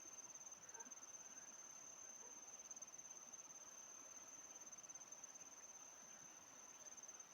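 Faint, continuous high-pitched insect trill, rapid and even, with no break.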